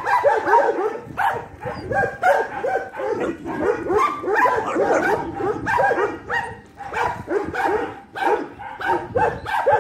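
Dogs barking and yipping in short, quick calls, several a second, without a break, as they play-fight.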